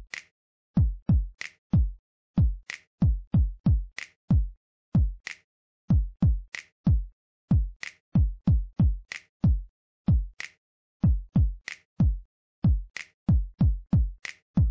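Background music: a bare electronic drum-machine beat of deep kick drums and crisp higher hits, with short gaps of silence between the strokes.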